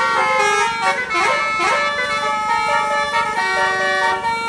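Tour bus telolet basuri horn playing a flute-like melody of held notes that step from pitch to pitch, with a short sliding phrase a little over a second in.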